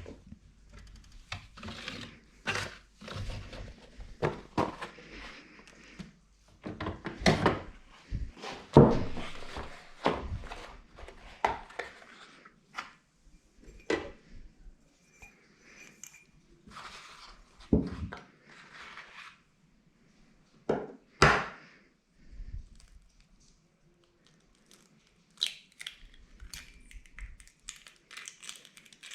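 Kitchen handling sounds: irregular knocks, thunks and clatter as dishes and containers are set down and cupboards or drawers are worked, with the loudest knocks about nine seconds in and again about twenty-one seconds in.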